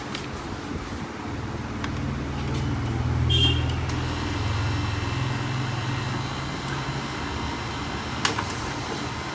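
Low motor rumble that swells over a few seconds and then eases off, with a short high beep about three seconds in and a sharp click near the end.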